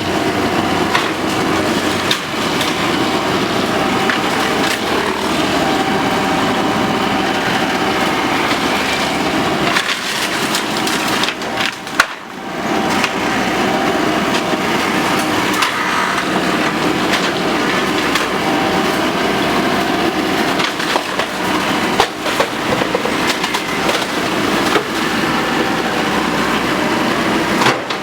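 Excavator working bamboo clumps: bamboo stalks cracking and splintering as they are crushed and torn out, over the machine's steady engine.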